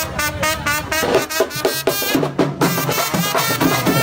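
Upbeat background music with a quick steady beat.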